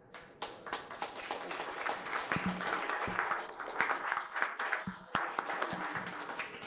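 Audience applauding: many hands clapping at once, starting about half a second in and thinning near the end.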